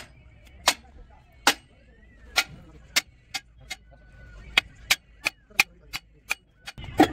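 About a dozen sharp clicks or knocks at uneven intervals, sometimes two or three a second. The loudest come at the very start and near the end.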